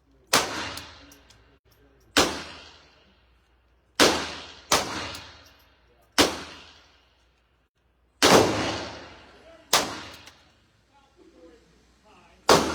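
Eight single gunshots from a handgun, fired at an uneven pace about one to two seconds apart. Each shot is a sharp crack with an echoing tail that trails off.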